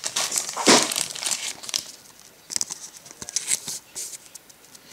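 Plastic crinkling in irregular bursts, loudest about a second in, as a trading card is slid into a soft plastic card sleeve and then a rigid top loader.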